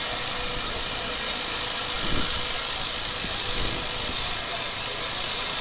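An engine running steadily under an even hiss, with one dull bump about two seconds in.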